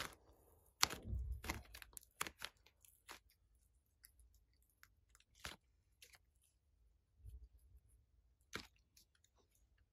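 Slime being squeezed and worked by hand, giving quiet, irregular wet clicks and crackles: a quick cluster in the first three seconds, then a few scattered pops.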